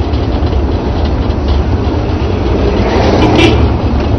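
Steady engine and road noise inside a moving taxi: a continuous low rumble with a hiss over it.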